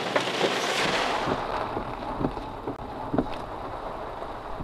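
Wind and heavy rain around a rain-wrapped tornado, heard from inside a car. A steady hiss gives way about a second in to a lower rumble of wind buffeting, with scattered taps of raindrops striking the windshield.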